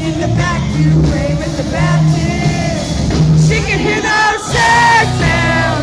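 Live country-rock band playing with a woman singing lead over a steady bass line and drums. The voice holds longer, louder notes in the last second or so.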